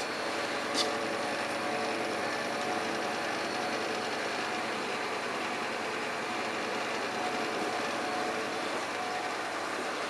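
Steady mechanical hum and hiss with faint, even tones, and a short click about a second in.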